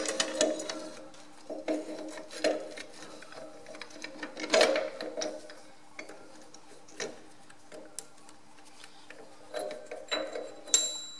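A coil draft link spring and its rubber boot being handled and pushed into the cast top-link bracket of a Ferguson FE35 tractor: irregular light clicks and knocks of metal and rubber, with a brief metallic ring near the end. A steady faint hum sits underneath.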